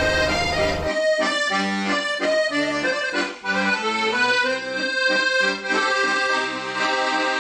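Accordion music playing a lively traditional tune with rhythmic chords. For about the first second a low helicopter rumble runs beneath it and then cuts off suddenly.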